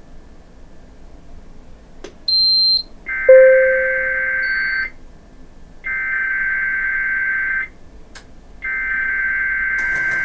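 NOAA Weather Radio SAME digital header: three identical bursts of shrill warbling data tones, each about a second and a half long and a second apart, opening a required weekly test. Before them, about two seconds in, come faint static hiss, a click and a short high beep, and a brief lower tone sounds at the start of the first burst.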